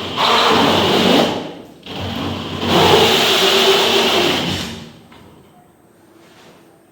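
A handheld electric power tool's motor runs in two bursts, about a second and then about two and a half seconds, before stopping.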